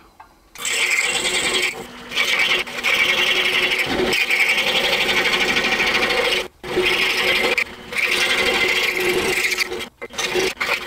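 Excalibur scroll saw cutting a thick block of walnut, the blade making a steady fine rasping buzz. It starts about half a second in and breaks off briefly a few times.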